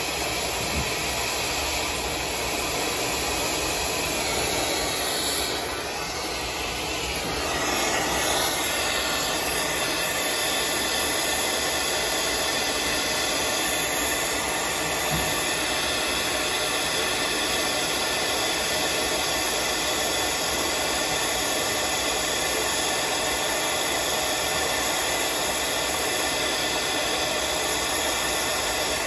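Brazing torch flame hissing steadily while a copper joint on a refrigeration solenoid valve is brazed.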